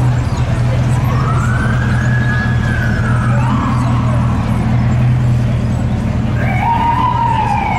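Siren wailing in slow rises and falls: one long wail about a second in, and another starting near the end, over a steady low hum.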